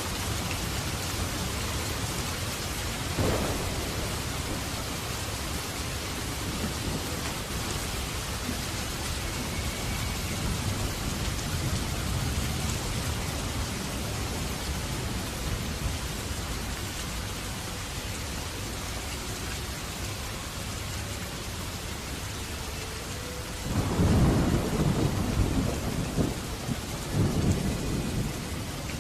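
Steady rain. A brief low rumble of thunder comes a few seconds in, and a longer, louder rolling rumble near the end.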